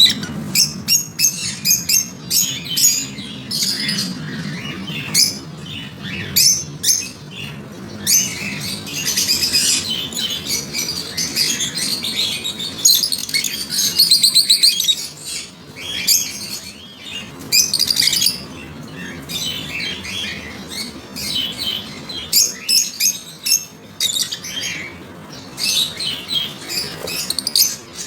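African lovebirds chattering: rapid, shrill chirps and squawks in quick runs, with a loud fast trill about halfway through.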